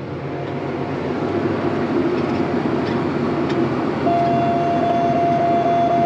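Tractor pulling a corn planter, running steadily. About four seconds in, a steady electronic warning tone sounds for about two seconds: the planter monitor's alarm for a fertilizer flow-detection warning on the right-wing row units.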